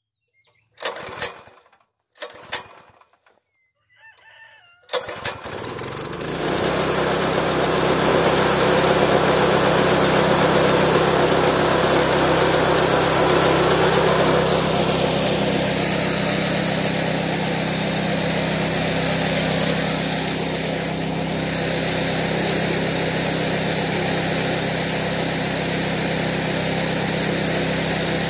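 Small single-cylinder gasoline engine pull-started with its recoil starter: a few pulls, catching about five seconds in, then running steadily as it drives the alternator, its tone shifting slightly about fifteen seconds in.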